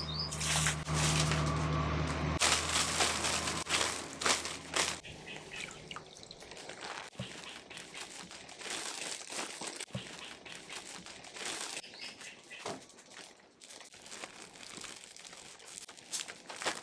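Clear plastic bag crinkling and rustling in irregular crackles as it is drawn over a seed pot and its mouth gathered and tied shut. A low steady hum sounds through the first couple of seconds, then stops.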